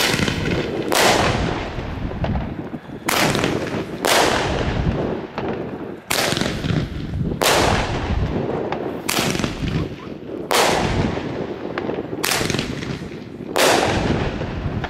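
Gaoo 'Hammer' firework shooting into the sky: about ten bangs, one after another at uneven gaps of one to two seconds, each trailing off. The bangs are not especially loud for such a firework.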